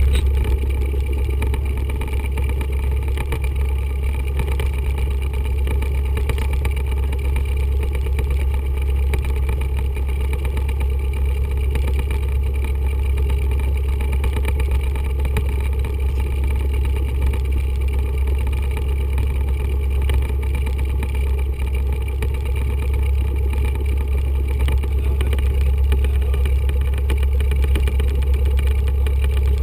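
A 1974 Cessna 172's four-cylinder Lycoming O-320 engine and propeller running steadily, heard inside the cockpit as a deep drone, getting a little louder near the end.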